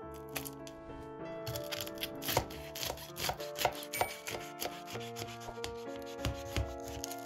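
A knife cutting through the crisp, cheese-topped crust of a baked focaccia in its metal baking tin: a run of irregular crackling, scraping strokes, over soft piano music.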